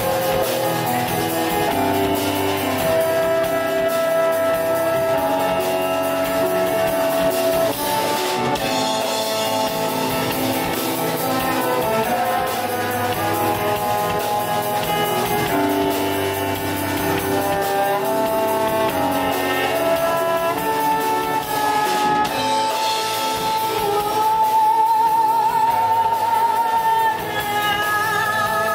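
Live slow jazz ballad: a Nord stage keyboard with a woman singing long held notes with vibrato.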